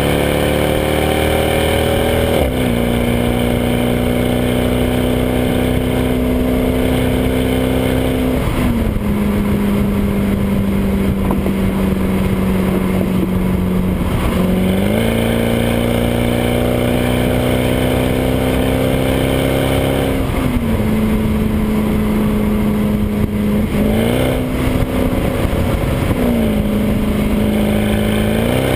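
Stock exhaust of a 2012 Mercedes C63 AMG Coupe's V8, heard right at the rear bumper while the car cruises at highway speed: a steady drone whose pitch steps down and back up several times.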